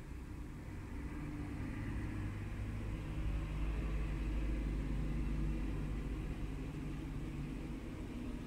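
Heavy truck's diesel engine rumbling as it moves slowly past at close range, growing louder to the middle and easing off towards the end.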